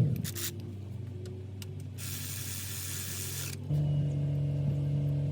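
A steady motor hum winds down with a falling pitch at the start; about two seconds in, an aerosol spray hisses for about a second and a half, and then the steady motor hum cuts back in suddenly.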